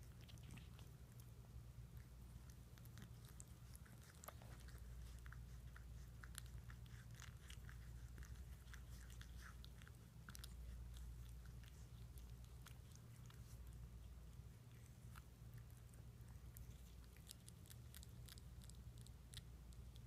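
Faint, wet licking clicks from two sphynx cats grooming each other: many small irregular ticks over a steady low hum.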